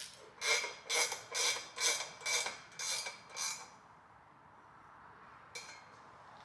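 Hand ratchet worked back and forth on an engine stud, about seven strokes roughly two a second, then one more short stroke near the end. This is a manifold stud being unscrewed.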